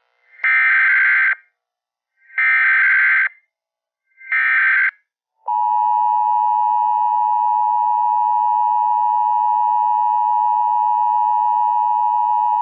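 Emergency Alert System SAME header: three bursts of rapid data tones, each about a second long, then the steady two-tone EAS attention signal beginning about five and a half seconds in. Together they mark the start of an emergency alert broadcast.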